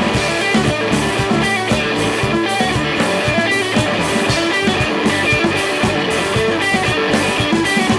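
Instrumental break of a pop-rock love song: guitar-led band playing a steady rhythmic passage between sung lines.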